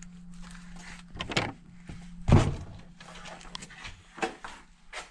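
Metal latch handle of an old wooden door rattled and worked, with a heavy thud about two seconds in as the door gives, and a few lighter knocks after.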